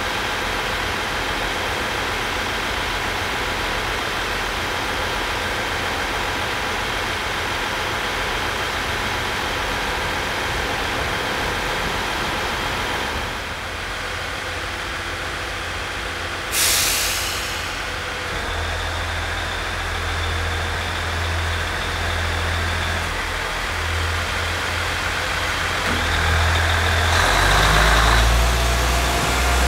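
A train standing at the platform with its equipment humming steadily, then a short, sharp hiss of air from the brakes a little past halfway. After that a low running sound builds as the train pulls away.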